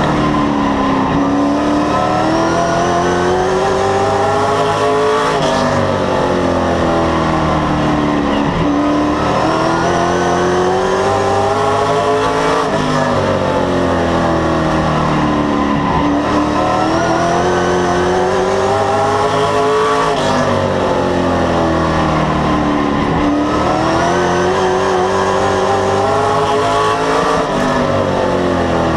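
Race car engine heard from inside the cockpit at full race pace. The pitch climbs as it accelerates down each straight, then drops sharply as the driver lifts for the turn, repeating about every seven to eight seconds, once per lap of the short oval.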